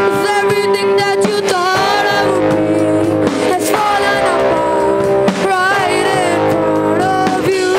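Live band music: a sung lead vocal through a microphone over electric guitars and percussion, with a steady beat.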